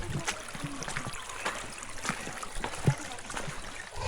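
Footsteps on a mountain hiking trail, irregular scuffs and steps, over the steady trickle of a stream.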